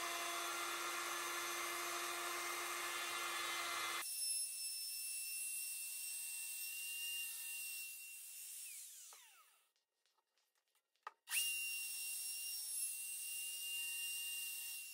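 Bosch wood router running faintly, a steady motor hum with one fixed tone, cutting an edge profile on an oak board. About four seconds in it drops to a fainter high hiss, cuts out for a few seconds in the middle, then comes back faintly.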